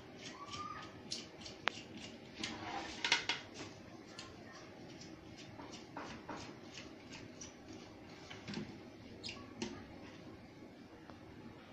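Irregular small clicks, taps and scrapes of hand tools working on a set-top box circuit board, with a brief faint squeak near the start.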